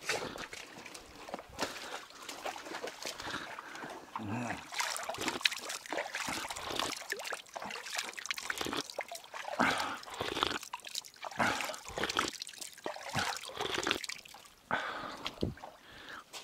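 Footsteps splashing and crunching over the stones of a shallow stream, with water trickling over the rocks and uneven scuffs and knocks.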